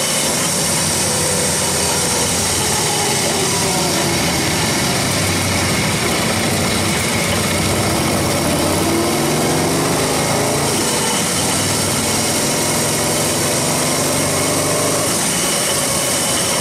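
Morgan 3 Wheeler's air-cooled S&S V-twin engine running on the move, its pitch rising and falling with the throttle about midway through, over steady wind rush in the open cockpit.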